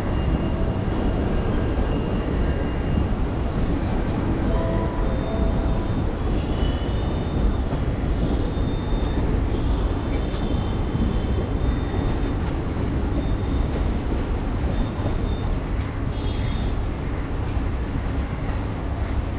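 A train running at the station with a loud, steady rumble. A high whine fades out in the first few seconds, and short high-pitched squeals come and go after that.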